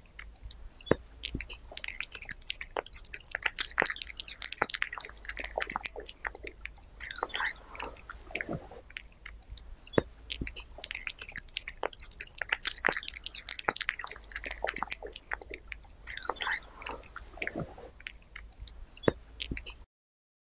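Domestic cat chewing chunks of raw meat close to the microphone: wet smacking and crunching with many sharp clicks of the teeth. It stops abruptly just before the end.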